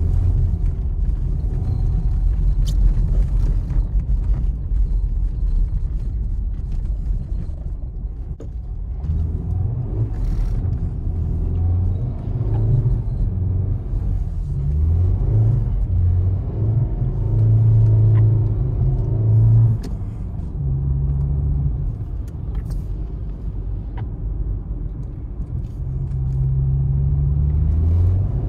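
Mercedes-Benz 200TE (S124) wagon's four-cylinder petrol engine and road rumble heard from inside the cabin, the engine note rising and falling repeatedly as the car is driven on snow.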